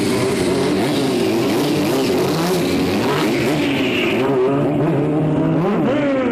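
Stunt sport motorcycle engine revving hard as the bike pulls away and is lifted into a wheelie, its pitch rising and falling with the throttle.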